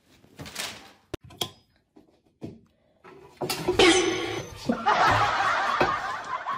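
Laughter starting about three and a half seconds in and carrying on loudly. Before it come scattered soft rustles and one sharp click.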